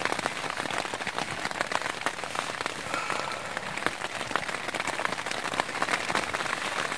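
Heavy rain falling steadily, a dense patter of drops striking close by.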